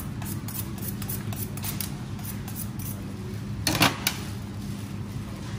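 Light knocks and scrapes of a fishmonger's knife and gloved hand on a plastic cutting board while filleting salmon, with one brief, louder scrape about two-thirds of the way in, over a steady low hum.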